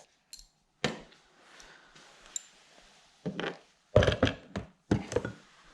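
Scattered knocks and metallic clinks of hand tools working on a motorcycle brake lever's pivot bolt and nut, with a quick cluster of several knocks about four seconds in.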